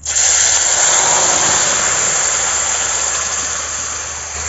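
Mango pulp sizzling loudly as it is poured into hot oil in a kadai. The sizzle starts suddenly as the pulp hits the pan and slowly dies down.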